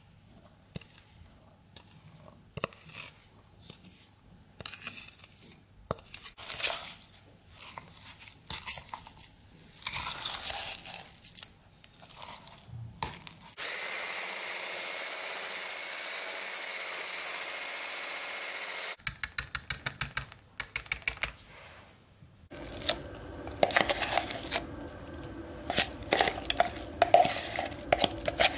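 Electric stick blender running steadily for about five seconds, whipping cream cheese with powdered sugar in a plastic jug, then a quick run of short sharp bursts, about four a second. Before it come soft scrapes and clicks of a spoon in the jug; after it, a metal utensil scrapes and clinks against a bowl.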